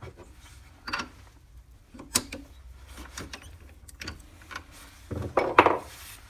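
Metal chuck key clicking and knocking in a four-jaw lathe chuck as the jaws are loosened, a few separate sharp clicks, then a louder scraping rub near the end as the wooden bangle is slid off the jaws.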